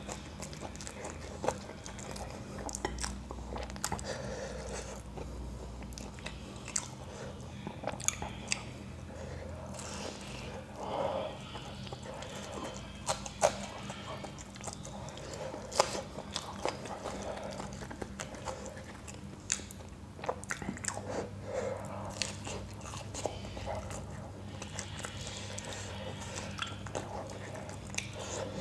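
Close-miked eating sounds of a man chewing raw green chillies and samosas: crunching bites and chewing with many short, irregular clicks.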